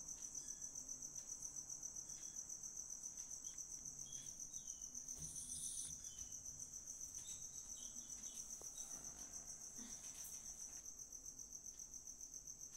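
A cricket chirping steadily: a faint, high, evenly pulsing trill.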